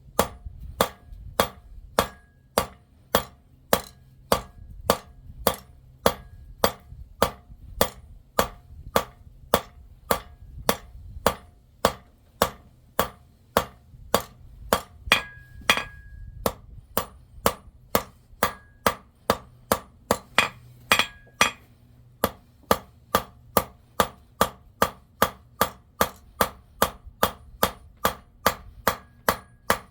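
Blacksmith's hammer striking silver on an anvil in a steady rhythm, about two blows a second, each blow with a short metallic ring.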